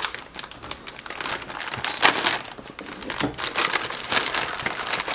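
Plastic packaging crinkling irregularly as a hand rummages through a clear bag of individually wrapped snacks.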